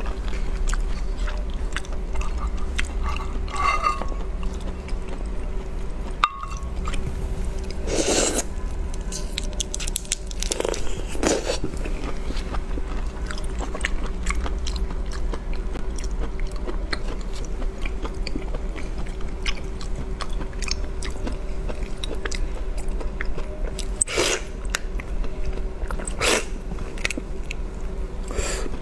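Close-miked eating of a raw shrimp: shell being peeled and cracked, with wet chewing and sucking, and a handful of short louder moments spread through. A steady low hum runs underneath.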